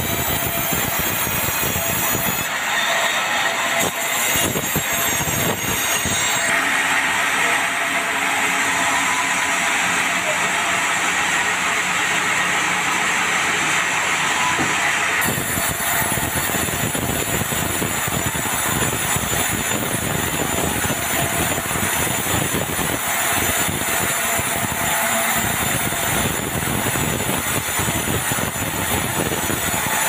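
A band sawmill running and cutting a red meranti log: a loud, steady saw noise whose tone shifts abruptly about halfway through.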